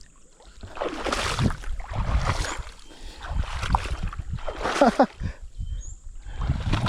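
Water splashing and sloshing in irregular bursts as a hooked small snakehead is brought in through weedy swamp water.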